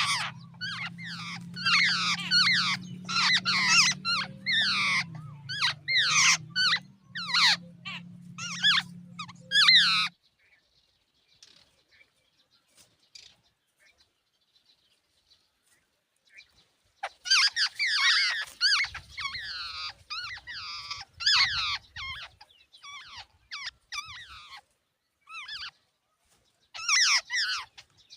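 Jungle babblers calling in dense runs of rapid, squeaky, downward-sweeping notes. The calls stop for about seven seconds midway, then start up again.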